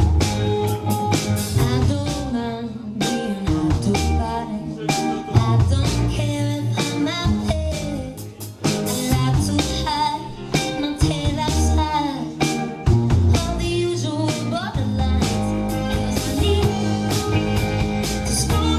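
Live band music: a woman singing over a hollow-body electric guitar, electric bass guitar and a drum kit.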